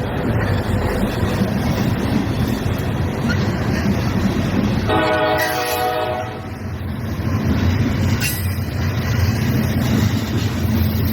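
Freight train rolling past with a steady low rumble, its locomotive sounding one horn blast about five seconds in.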